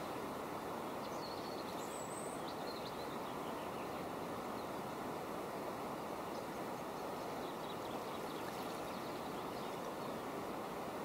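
Steady rush of flowing river water, with a few faint bird chirps about a second in and again near the end.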